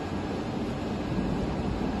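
Induma vertical milling machine running steadily: an even whir and hiss over a low hum.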